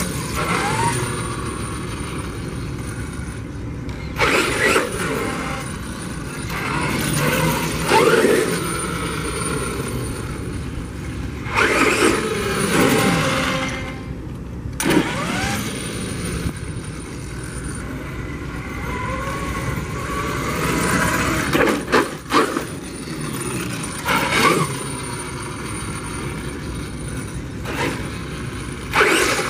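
Castle Creations XLX2 brushless electric motor and gear drive of a 1/5-scale Redcat Rampage MT monster truck, converted from gasoline and running on a 6S battery. It whines up and down in pitch in repeated surges a few seconds apart as the truck speeds up and slows, over the rolling noise of its tyres on concrete.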